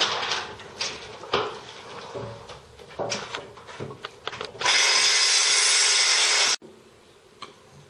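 Wires being handled and pushed into a steel electrical panel enclosure: scattered clicks, taps and rustling. About four and a half seconds in, a loud steady hiss starts and runs for about two seconds, then cuts off suddenly.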